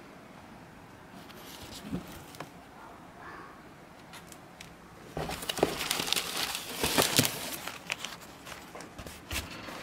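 A folded newspaper rustling and crinkling loudly for about two seconds as it is pulled out of a plastic-sheet newspaper box, after a light knock about two seconds in.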